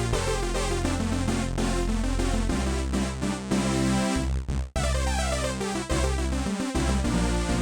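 Groove Synthesis 3rd Wave wavetable synthesizer playing a factory patch: a busy run of quick notes with falling sweeps over held low bass notes. It cuts out briefly a little past halfway and starts again.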